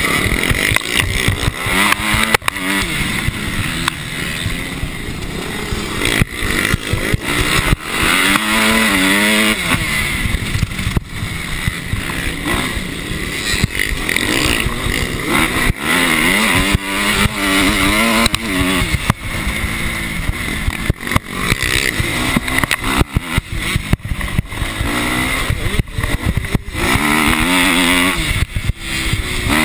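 Motocross bike engine heard close up from on board, revving up and falling back again and again as the rider accelerates and shifts round the dirt track. Rough wind noise and frequent short knocks run through it.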